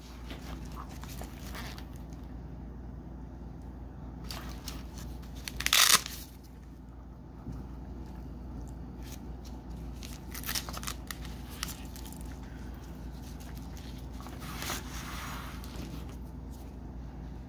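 Gloved hands handling a nylon machete sheath: the fabric rustles and crinkles, with a short, loud tearing rasp about six seconds in and smaller bursts later. A steady low hum runs underneath.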